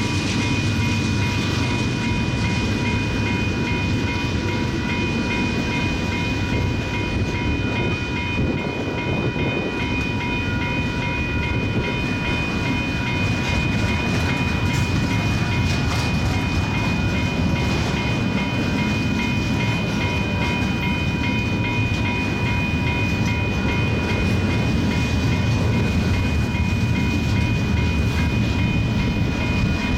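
Freight stack train rolling past: a steady, loud rumble of steel wheels on the rail, with a few steady high ringing tones over it.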